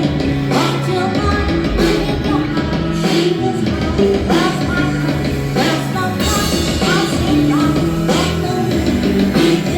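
Rock band playing with a drum kit and singing, drum strikes landing about every second and a quarter over held notes.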